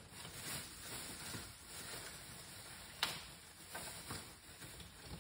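Faint handling noises from objects being moved on a kitchen counter: soft rustles and light knocks, with one sharper click about three seconds in.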